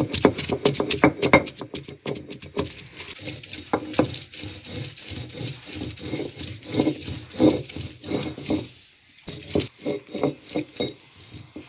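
Stone roller rolled back and forth by hand over a flat grinding stone (ammikkallu), crushing a wet coconut chutney paste: a quick run of knocks and gritty scrapes of stone on stone, thinning out briefly about nine seconds in.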